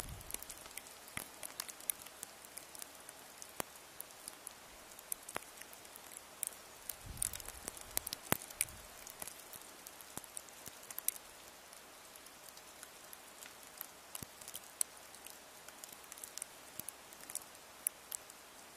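Precipitation pattering on a surface: irregular light ticks over a steady faint hiss.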